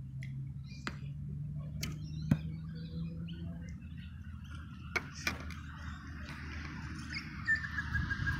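Recurve bow shot: a loud sharp snap about two seconds in as the string is released, with a few fainter clicks around it and two more a little after five seconds. Birds chirp in the background, and a steady high note comes in near the end.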